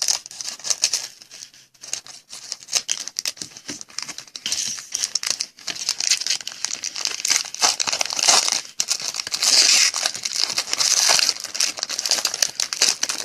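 Plastic and foil wrapping of a sealed trading-card hobby box and its pack being torn and crinkled open: a dense run of crackling rustles, busier in the second half.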